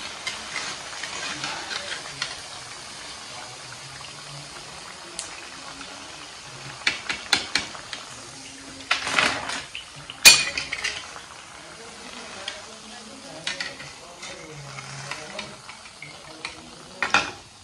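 Oil sizzling steadily in a kadhai as besan-battered eggplant fritters deep-fry, with a metal skimmer clinking and scraping against the pan several times. The sharpest clank comes a little past the middle.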